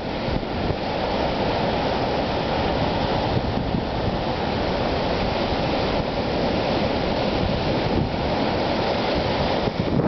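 Ocean surf washing over rocks and onto the sand, a steady, continuous rush of breaking water.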